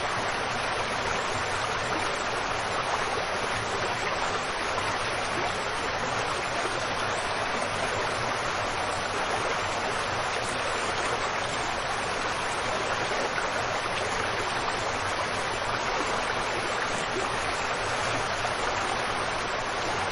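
Waterfall: the steady rush of falling water, even in level, without breaks or changes.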